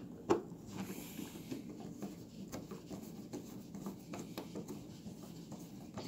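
Faint handling sounds: light rubbing and scattered small clicks, with one sharper click about a third of a second in.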